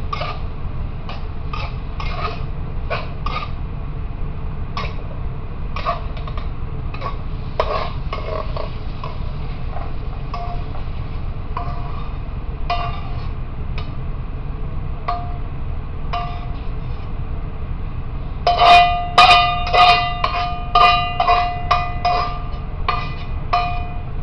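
Kitchen clatter: scattered clicks and knocks of utensils and dishes over a steady low hum. About three-quarters of the way in comes a quick run of ringing metal strikes, roughly two or three a second, the loudest sounds here.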